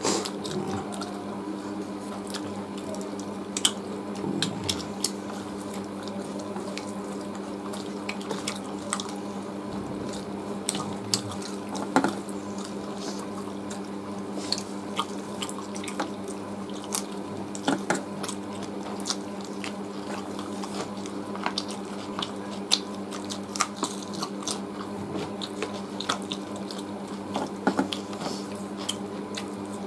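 Two people eating roast chicken and rice by hand: wet chewing and lip-smacking with many scattered small clicks, over a steady low hum.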